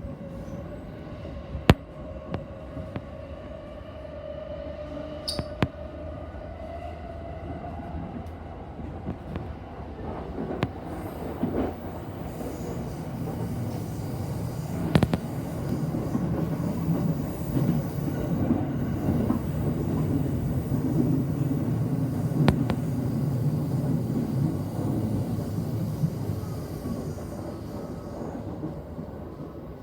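Electric commuter train heard from inside the carriage, running between stations: a steady rumble of wheels on rail that grows louder through the middle and eases near the end, with a few sharp clacks. A faint motor whine climbs slowly in pitch over the first several seconds as the train gathers speed.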